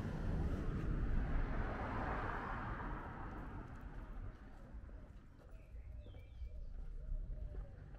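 Residential street ambience: a rushing noise swells and fades over the first few seconds, then it goes quieter with a few faint bird chirps.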